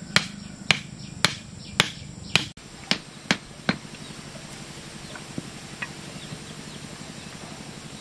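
Hammer driving bamboo stakes into the ground: sharp strikes about two a second, eight in all, stopping about four seconds in. A steady low hum runs underneath.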